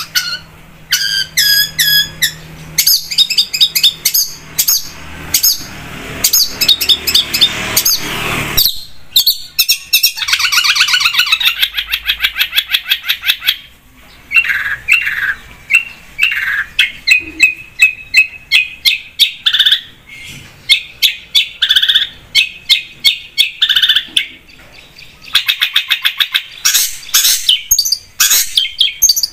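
Long-tailed shrike (cendet) singing in a fast, varied run of sharp chirps, harsh rasping notes and a rapid even trill, broken by a couple of short pauses.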